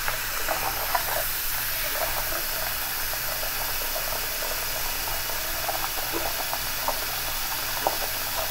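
Cold water running steadily from a bathroom sink tap, with a few light splashes scattered through.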